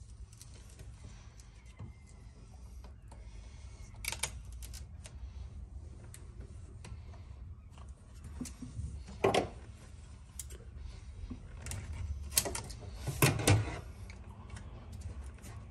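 Self-adhesive tape being pulled off its roll and pressed down by hand onto a metal floor panel: scattered small clicks and rubbing, with a few louder short rasps, the loudest about 9 and 13 seconds in. A low steady hum lies underneath.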